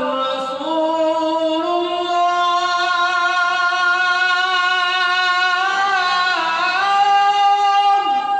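A man's voice chanting the Islamic call to prayer (azan), unaccompanied, drawing a phrase out into one long held note. The note steps up in pitch about a second in, wavers down and back up around six seconds, then stops sharply near the end.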